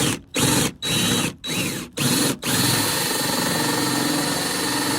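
Power drill cutting holes for through-hull fittings in a fiberglass boat hull. It is triggered in about five short bursts, its whine spinning up and down, then from about two and a half seconds in it runs steadily.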